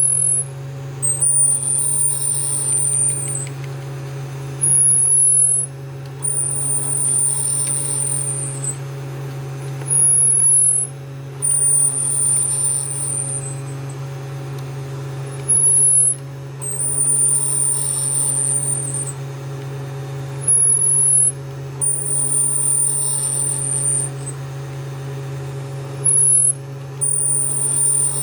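Qidi I-Fast 3D printer squeaking as it moves side to side: high-pitched squeals in repeating pairs, a short higher one followed by a longer, slightly lower one, about every five seconds, over a steady low hum.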